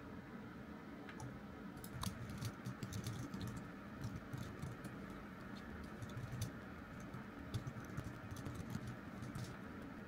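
Typing on a computer keyboard: irregular key clicks that start about two seconds in and keep going until shortly before the end.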